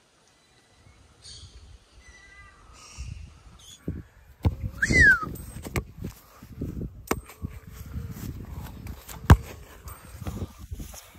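Soccer ball being kicked on grass: a few sharp thuds, the loudest about nine seconds in, with a short high call falling in pitch about five seconds in.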